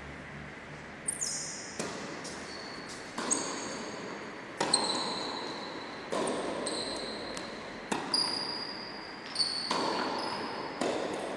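Tennis rally in a large, echoing indoor sports hall: about nine sharp racket strikes and ball bounces, one every second or so, each ringing on in the hall. High squeaks of shoes on the court floor come in between the hits.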